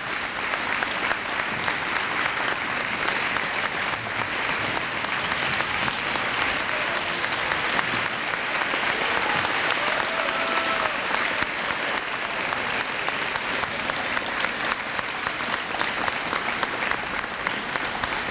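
Sustained applause from a large crowd, many hands clapping steadily.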